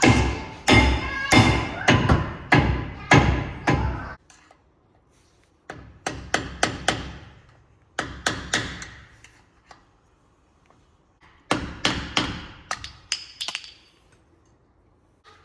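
Repeated hammer blows on metal with a ringing tone, in four quick runs of strikes separated by short pauses.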